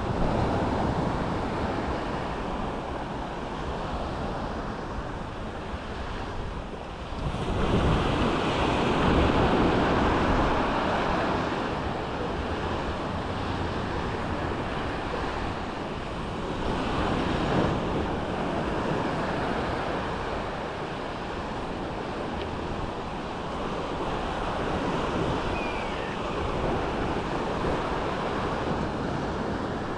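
Sea waves washing onto a beach, a steady surf noise that swells loudest from about eight to eleven seconds in and again briefly near seventeen seconds.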